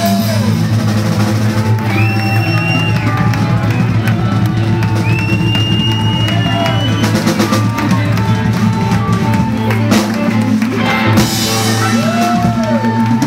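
Live blues band playing: a drum kit keeping a steady beat under electric guitar, with held notes that bend up and down.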